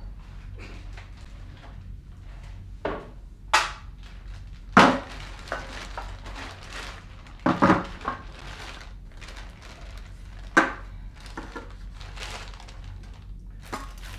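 A plastic carrier bag rustling as groceries are unpacked, with sharp knocks of tins and other items set down on a kitchen worktop. About half a dozen separate knocks, the loudest about five and eight seconds in, over a low steady hum.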